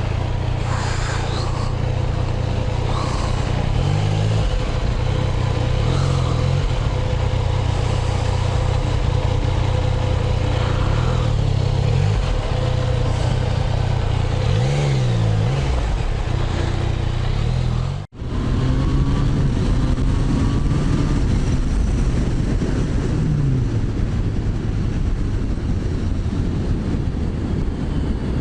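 Motorcycle engine running on the road with wind rushing past, its pitch swinging up and down several times as it revs and shifts. The sound breaks off for an instant about eighteen seconds in, then carries on.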